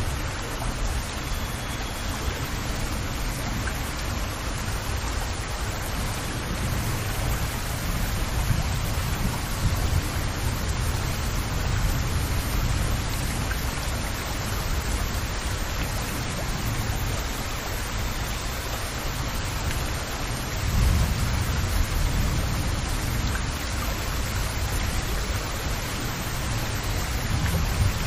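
Steady rain pattering on open water, a dense even hiss of drops. A low rumble runs underneath and swells about twenty seconds in and again near the end.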